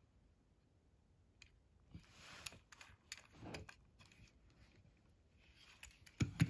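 Fingers handling a small plastic Matchbox toy truck and turning it over, making faint clicks and rubbing that start about two seconds in. A louder thump comes near the end.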